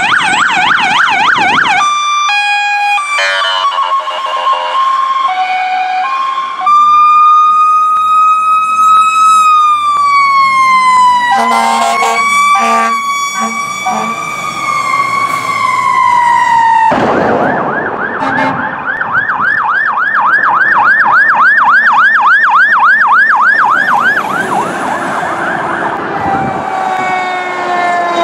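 Fire apparatus sirens on a run. A fast electronic yelp comes first, then choppy stepped tones, then a long slow wail that rises and falls, with short blasts cutting across it. About two-thirds of the way through, another fast yelp starts, and falling tones wind down near the end.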